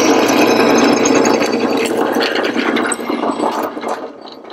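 Benchtop drill press running, its bit cutting through an aluminium rod and throwing off metal chips, a steady mechanical din that dies away over the last second or so.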